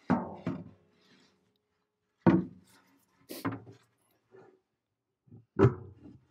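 A heavy pad knocking against the steel tray of a wine basket press as it is muscled into place: several separate clunks, spread irregularly, some with a short metallic ring.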